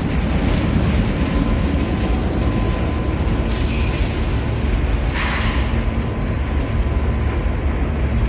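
BNSF mixed freight train rolling past close by: a steady, loud rumble of locomotives and cars on the rails, with a brief hiss about five seconds in.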